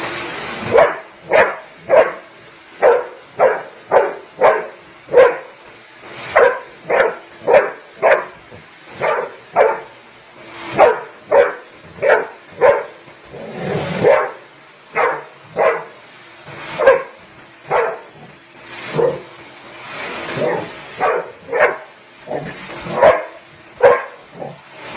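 Young golden retriever barking over and over in short, sharp barks, about one or two a second, with a few brief pauses.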